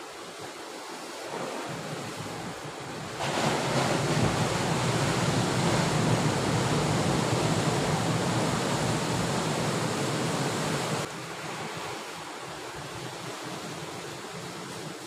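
Sea waves washing and breaking against a rocky shore, with wind buffeting the microphone; the surf noise grows much louder about three seconds in and drops back suddenly near the end.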